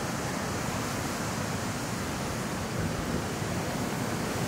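Steady wind noise buffeting the microphone outdoors, a continuous rushing hiss with a fluttering low rumble.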